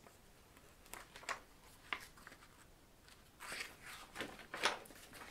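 Pages of a hardcover picture book being handled and turned: a few faint taps, then paper rustling about three and a half seconds in.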